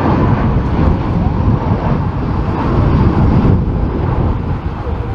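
Jet airliner engines rumbling steadily, with strong wind buffeting the microphone.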